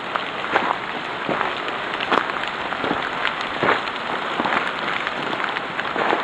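Footsteps crunching through dry fallen leaves, about two irregular steps a second, over a steady hiss.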